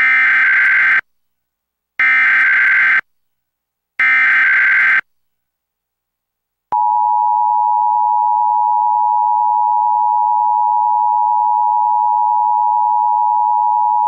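Emergency Alert System SAME header: three one-second bursts of shrill digital data tones, two seconds apart. About seven seconds in, the steady two-tone EAS attention signal starts and holds.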